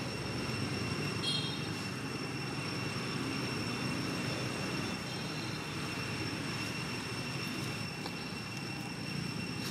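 Steady outdoor background noise: a low rumble with a constant thin high-pitched whine, and a brief high chirp about a second in.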